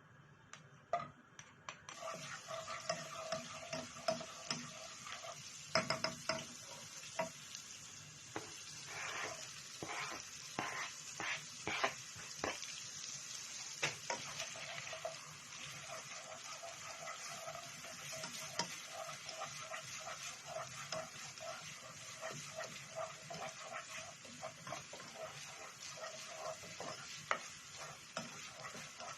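Food sizzling in a hot pan, starting suddenly about two seconds in, with the clicks and scrapes of a utensil stirring it, busiest in the first half.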